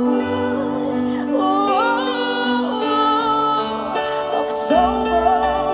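A woman singing live into a microphone over an instrumental backing, holding long notes that slide between pitches.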